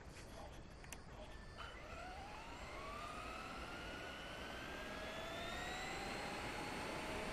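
Traxxas E-Maxx RC monster truck's electric motor whining as it accelerates down the road, the whine rising in pitch from about two seconds in and then holding nearly steady, over a steady rush of tyre and road noise.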